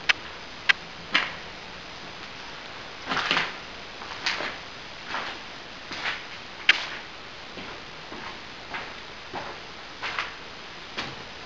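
Footsteps walking on a hard floor: a string of short crunches and sharp clicks, about one step every second.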